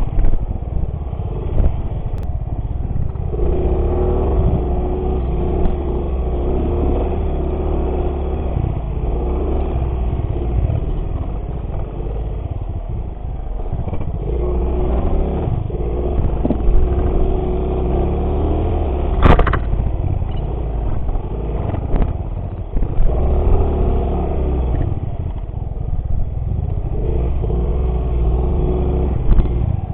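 Small motorcycle engine running under varying throttle while riding off-road, its note swelling and easing in several stretches, with heavy low rumble from wind and rough ground. One sharp knock about two-thirds of the way through.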